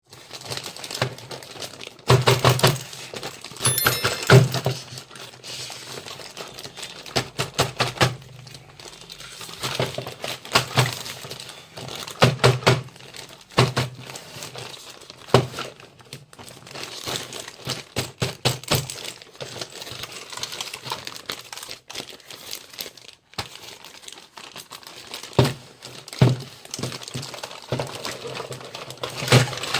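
Unboxing a miniature toy kitchen set: packaging crinkling, with small plastic and metal toy pieces clicking and clattering in irregular clusters.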